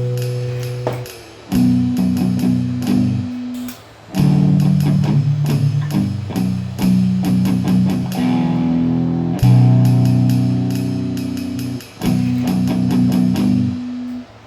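Background music led by guitar over low bass notes, played in phrases of plucked chords, cutting off shortly before the end.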